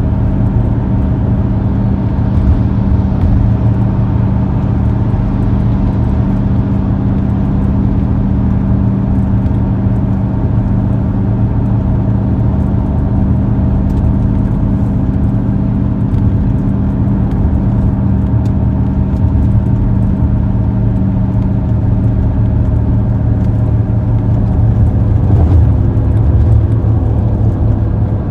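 Car being driven at a steady speed: a constant low engine drone with road noise.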